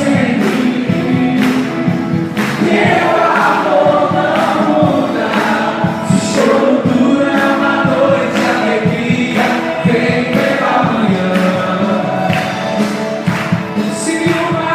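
Gospel worship song: a group of voices singing with a band, over a steady beat.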